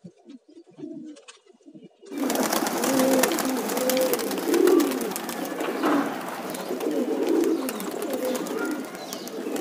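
Domestic pigeons cooing. A few soft, separate coos come first, then about two seconds in a much louder, dense chorus of many pigeons cooing at once, with a steady hiss behind it.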